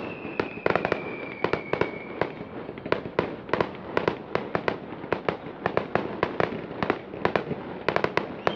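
Aerial fireworks shells bursting over the water in a rapid, irregular string of bangs and crackles, several a second. A high whistle slowly slides down in pitch and fades out about two seconds in.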